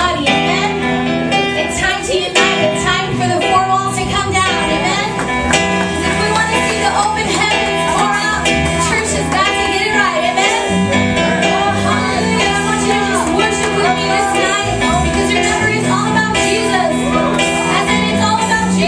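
Live worship music: a band playing over a steady bass, with singing over it.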